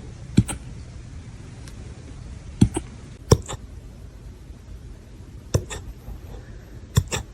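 A puppy hiccuping five times at uneven intervals, each hiccup a sharp little click followed at once by a fainter second one.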